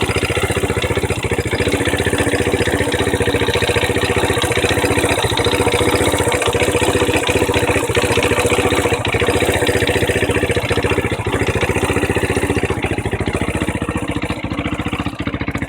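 Honda NX 125's single-cylinder four-stroke engine idling steadily while warm, with a small scraping noise inside the engine that the owner fears means it is poorly lubricated, unless it is normal.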